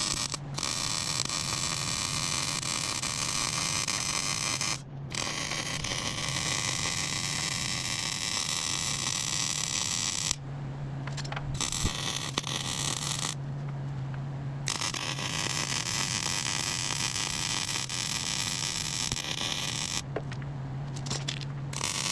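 Welding arc crackling and hissing in long runs, with a short break about five seconds in and longer pauses near the middle and end. During the pauses a steady low hum from the welder remains.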